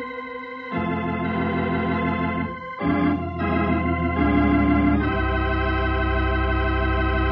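Organ music bridge closing a radio-drama scene: a few sustained chords that change, then a long final chord held out.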